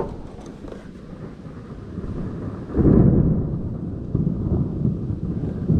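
Thunder: a deep rumble that swells, turns loudest about three seconds in, and keeps rolling with irregular peaks.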